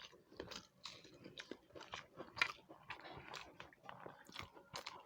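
Close-up eating sounds: soft, irregular chewing and crunching with wet mouth clicks, a few a second.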